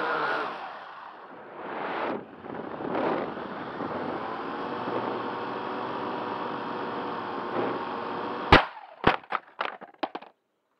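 Syma X8C quadcopter's motors and propellers whining, heard from its onboard camera. The whine falls away about half a second in as the thrust is cut, rises again at about two and three seconds, then runs steadily. About eight and a half seconds in the drone crash-lands with a loud impact, followed by several smaller, fading knocks as it bounces and tumbles on paving.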